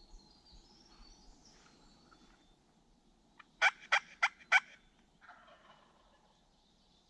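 A wild turkey gobbling from its roost. About halfway through come four sharp, loud notes in quick succession, followed by a fainter, rattling call.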